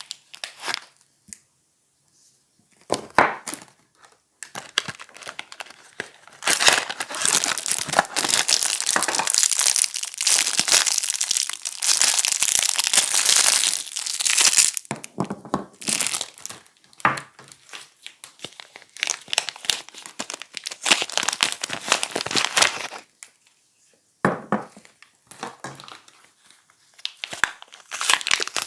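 Soap packaging being unwrapped: wrapping crinkling and tearing in a long dense stretch, then in shorter bursts with brief pauses.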